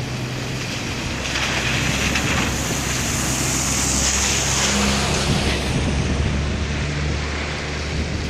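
Low, steady engine hum of a heavy vehicle running, with wind on the microphone and a rush of surging water that swells about a second in and fades after about five seconds.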